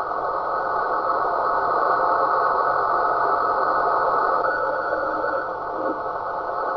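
Steady rushing noise from a radio receiver, swelling slowly with a brief dip about five and a half seconds in.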